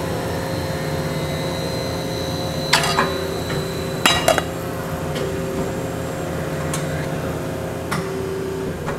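Iron frying-pan bodies knocking and clinking as they are set down onto a stack: a handful of sharp metallic knocks, the loudest a little under three seconds in and a close pair about four seconds in. Underneath, a steady machinery hum with a few steady tones.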